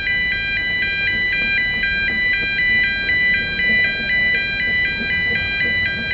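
Road-crossing warning alarm sounding a steady two-tone electronic beeping that alternates pitch about four times a second, as the steam train crosses the street. A low rumble from the locomotives runs underneath.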